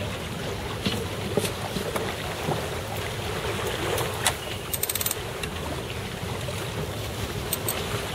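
Wind buffeting the microphone and water rushing past the hull of a racing sailboat running under spinnaker, a steady rushing noise. A few sharp clicks from the deck gear, with a quick rattle of clicks about five seconds in.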